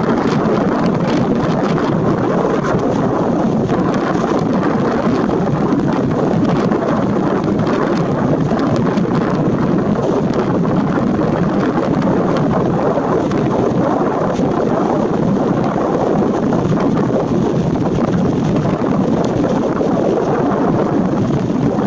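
Loud, steady rushing noise of wind and surf, with wind buffeting the microphone.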